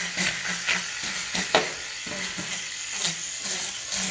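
Electric fish scaler running with a steady motor hum, its spinning head rasping the scales off a fish in short scraping strokes.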